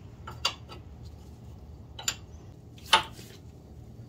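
Wrench on a power steering line fitting at the steering gearbox, clicking against the metal as the hose nut is tightened: a handful of sharp, irregular metal clicks, the loudest about three seconds in.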